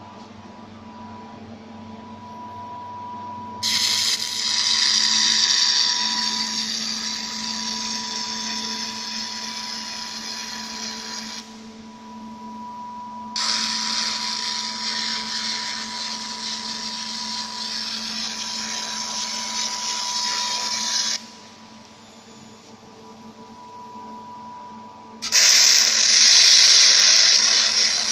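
Robot-held 1 kW fiber laser working metal: three runs of loud, steady hissing and sizzling that start and stop abruptly, about eight seconds each, the last starting near the end. Between runs a steady machine hum with a constant high tone carries on.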